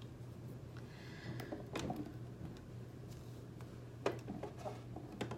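A few scattered light clicks and taps of small objects being handled, the sharpest about four seconds in, over a steady low hum.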